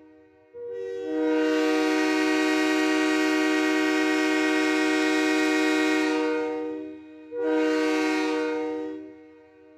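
Train air horn sounding a chord of several notes at once: one long blast of about six seconds, then a shorter blast of about two seconds, each fading away at its end.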